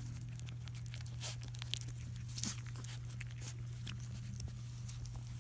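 Three-week-old Labrador puppies' mouths smacking and clicking irregularly close to the microphone as they suckle and mouth, over a steady low hum.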